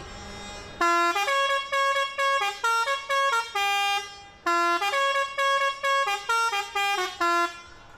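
A truck's musical air horn playing a short tune of held notes that step between pitches, the phrase played twice.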